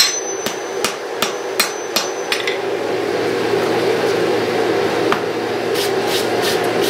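Hammer blows on hot steel cable, forge-welding its ends solid for cable Damascus, at about two and a half blows a second. The blows stop about two and a half seconds in, a steady rushing roar takes over, and lighter, quicker strikes come back near the end at about four a second.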